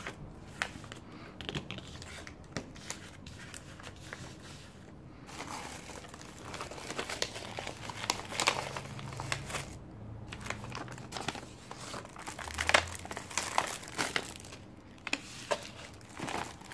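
Clear plastic cellophane sleeves around stationery items crinkling as they are handled and shifted around on a desk, in irregular bursts of rustling.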